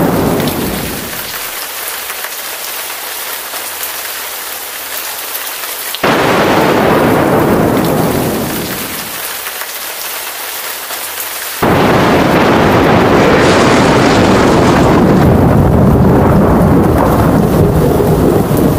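Thunderstorm: rain falling steadily while thunder rumbles. A sudden loud thunderclap breaks about six seconds in and dies away over a few seconds, and another hits near the middle and keeps rumbling heavily.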